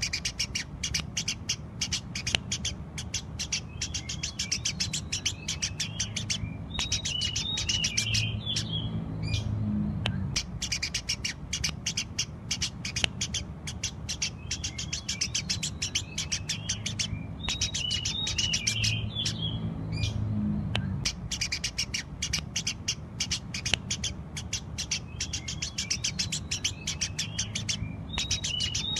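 Eurasian tree sparrow chirping rapidly and without pause, a dense run of sharp chirps broken about every ten seconds by a short lower warbling phrase, over a steady low hum.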